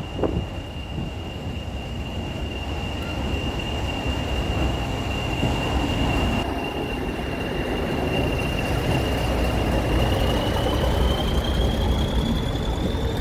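BR Class 40 diesel locomotive's 16-cylinder English Electric engine running, its turbochargers giving the steady high whistle that earned the class the nickname 'Whistlers' over a low engine rumble. Near the end the whistle rises in pitch as the engine speeds up.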